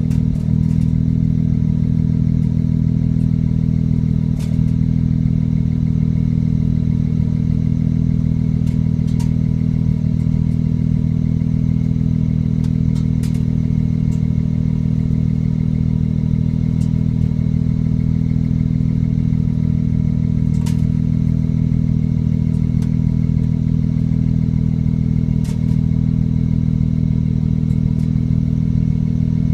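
BMW N54 3.0-litre twin-turbo inline-six running steadily at an even level, with a few faint ticks over it. The engine suffers from intermittent misfires that sometimes affect the idle and sometimes do not.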